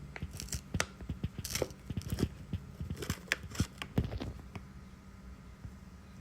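A bolt on a bicycle seatpost being turned loose, giving a run of irregular gritty crunches and clicks that thin out after about four seconds: a sandy, grinding noise from sand and dry, dirty grease in the threads.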